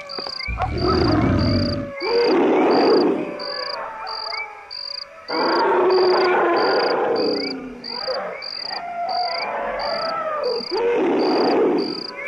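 Cartoon jungle ambience: an insect chirping steadily about twice a second, with five loud, rough animal calls of a second or so each, wavering in pitch.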